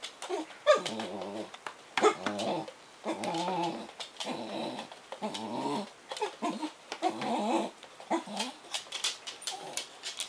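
Black Bedlington Terrier puppy making a string of about eight drawn-out, wavering whining and grumbling noises at an English Bull Terrier through the bars of its crate, with light ticks between the calls.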